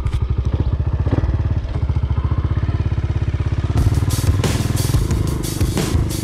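An old off-road motorcycle's engine running with an even, rapid beat. About four seconds in it revs up as the bike pulls away and climbs, turning louder and noisier, with clattering.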